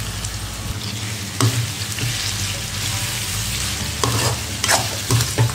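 Raw chicken pieces sizzling in hot oil in a kadai while a slotted metal ladle stirs them, scraping against the pan several times. This is the start of frying the chicken in oil alone, without water.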